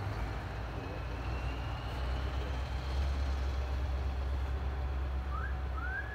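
A crane's engine running with a steady low drone while a building module hangs from it. Near the end come two short high squeals that rise and fall in pitch.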